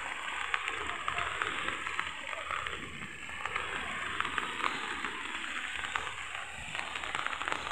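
Rain falling steadily: a constant hiss with scattered sharp ticks of drops striking.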